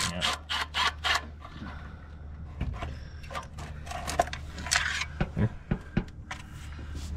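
Hand tools and loose metal parts clicking, tapping and scraping against metal under a truck's hood while fasteners are worked off. A quick run of clicks in the first second, then scattered taps and scrapes, over a steady low hum.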